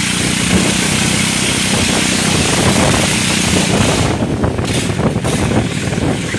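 Small motorised canoe's engine running steadily, with a hiss over it that briefly drops out twice near the end.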